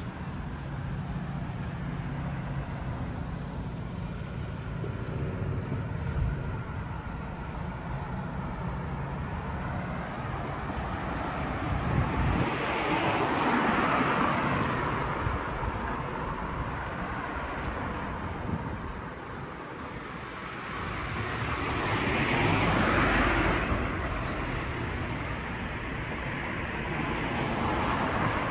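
Street traffic: cars driving past on the road, two of them swelling up and fading away, about halfway through and again near the end. A low engine hum runs under the first third.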